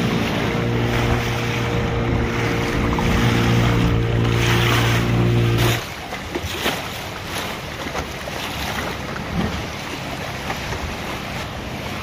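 A boat's motor runs steadily and stops suddenly about halfway through. After that only waves and wind buffeting the microphone are left.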